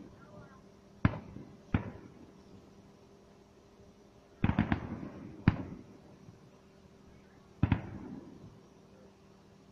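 Aerial firework shells bursting: a series of sharp bangs, some coming in quick clusters, each trailing off into an echoing rumble.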